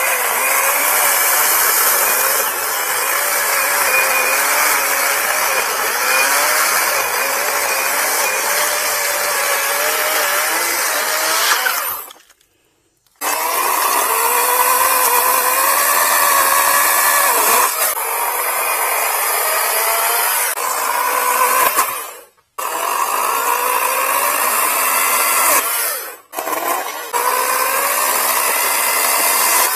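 Badger 40-volt brushless cordless chainsaw cutting through a tree limb. The motor's whine wavers in pitch as the load on the chain changes. It stops three times, about 12, 22 and 26 seconds in, and starts again each time for the next cut.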